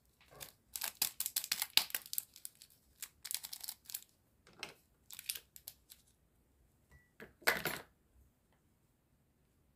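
Clear cellophane lollipop wrappers crinkling as they are handled, in short, irregular crackles, with one louder rustle about three quarters of the way through.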